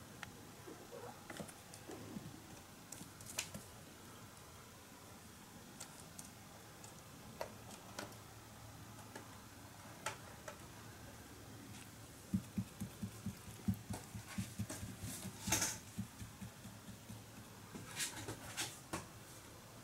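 Quiet room with scattered light taps, clicks and scratches of kittens moving about on a carpeted cat tower. In the second half comes a quick run of soft thumps, then a sharper click, and a few more taps near the end.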